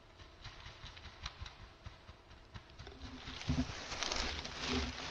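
Light rustling and small ticks, then about three seconds in louder rustling with a few dull thumps as the hunter moves about in dry forest leaves and jostles his head-mounted camera.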